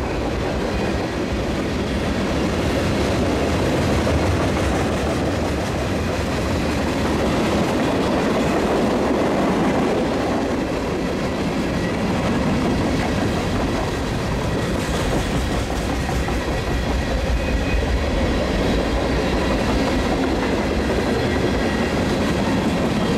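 Freight cars of a fast-moving Union Pacific manifest train rolling past, a steady noise of steel wheels running on the rails that carries on without a break.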